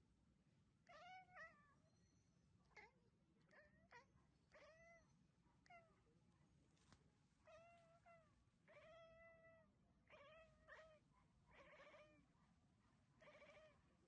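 Domestic cat giving a string of about a dozen short, faint meows, each rising and falling in pitch, with short gaps between them.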